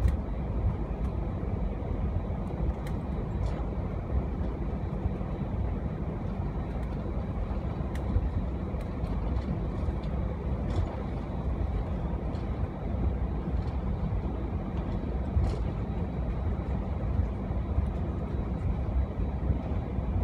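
Cabin noise of an Airbus A319 taxiing: a steady low rumble from the idling engines and the rolling airframe, with faint clicks and rattles now and then.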